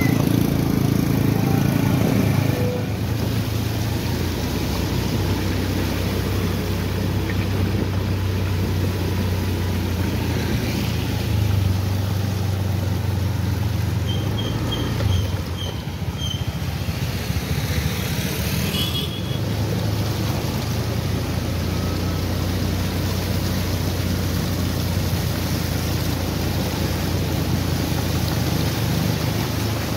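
Motorcycle engine running at a steady speed through a flooded street, with a constant rush of water spray under the wheels.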